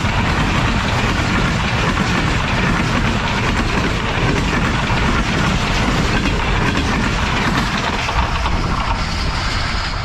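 Express train's passenger coaches rushing past close by at high speed, wheels clattering over the rails in a steady loud rumble that eases a little near the end as the last coach goes by.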